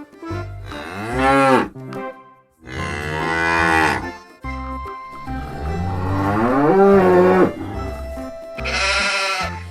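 Cows mooing, several long drawn-out calls, over background music with a steady low beat.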